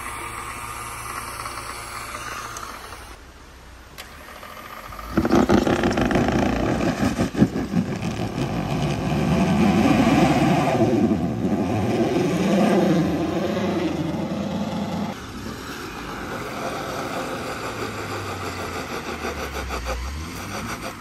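Jeep Rubicon's engine running steadily, then suddenly revving hard, its pitch rising and falling for about ten seconds as the stuck Jeep is pulled out of a snowbank on a recovery line, before settling to a steadier, quieter run.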